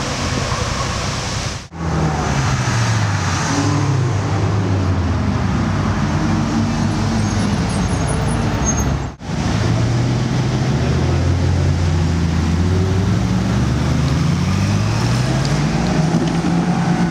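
Ferrari V8 supercar engines revving and accelerating in street traffic, the engine note falling and rising through the gears, with two brief dropouts. Near the end a Ferrari 458 Italia's naturally aspirated V8 climbs steadily in pitch as the car accelerates away.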